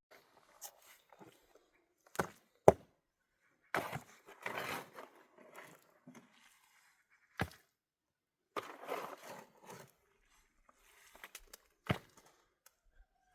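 Hand work with wood: a few sharp knocks, two close together early on and the loudest about two and a half seconds in, with rustling and scraping of material being handled between them.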